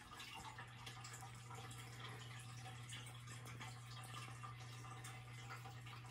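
Quiet room tone: a steady low hum with faint scattered ticks and small clicks.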